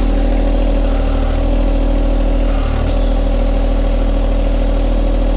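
John Deere 1025R compact tractor's three-cylinder diesel engine running steadily.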